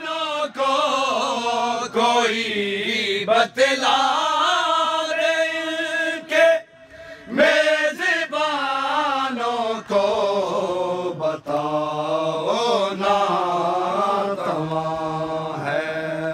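A group of men chanting a Shia noha (lament) in drawn-out, wavering notes, pausing briefly about halfway through.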